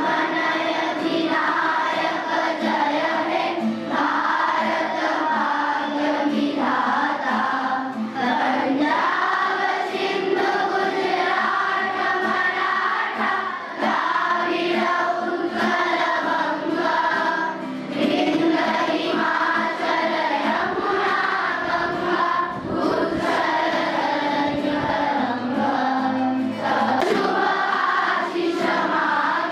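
A large group of schoolchildren singing together in chorus, a steady, continuous song.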